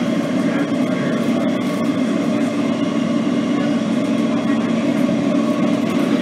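Steady running noise inside a Kawasaki R160B subway car: wheels on rail and the car's machinery under way, with a few light clicks about one and a half seconds in.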